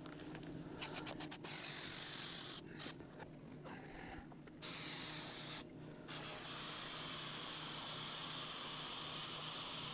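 Aerosol spray adhesive being sprayed: a few quick clicks about a second in, then three hissing bursts, the last about four seconds long.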